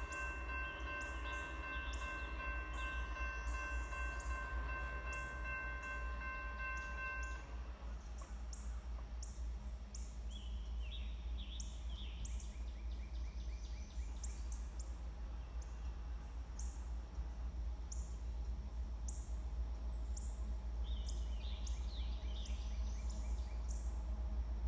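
Railroad grade-crossing bell ringing steadily with the warning lights flashing, stopping about seven seconds in. Then songbirds chirping and singing over a steady low rumble.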